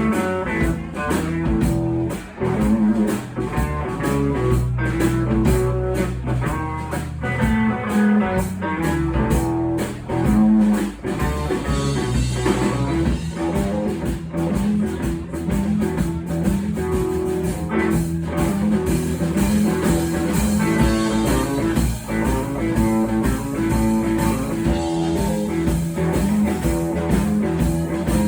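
Live blues band playing an instrumental: electric guitar leading over bass and drum kit with a steady beat.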